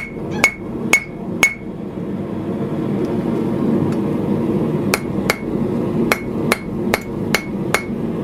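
Hand hammer striking a red-hot steel knife guard on the anvil horn, about two blows a second, each with a short ring. The blows pause about 1.5 seconds in and start again about 5 seconds in.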